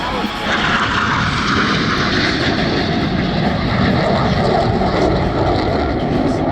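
Jet noise from Blue Angels F/A-18 Super Hornets flying by: a loud, rushing rumble that swells about half a second in and stays loud.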